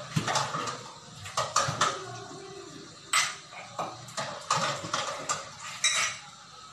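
Dishes and cutlery clinking and clattering in a kitchen sink as they are washed by hand, in a dozen or so irregular knocks.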